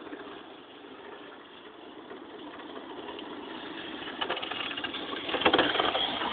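Radio-controlled drift car running on asphalt. The sound builds as the car comes nearer and is loudest about five and a half seconds in, with scrubbing, crackly tyre and motor noise.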